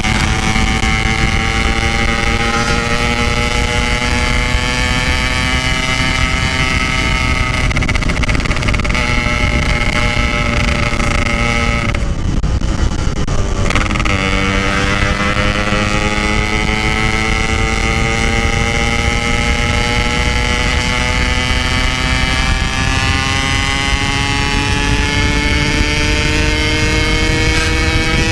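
Yamaha RX-King's single-cylinder two-stroke engine pulling under acceleration through a stock-style 'belek' exhaust, its pitch climbing slowly. About halfway through, the engine note drops away for about two seconds for a gear change. It then comes back lower and climbs again.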